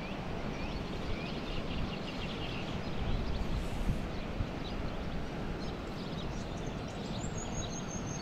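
Steady outdoor ambience of a shallow river running over gravel, with small birds chirping now and then.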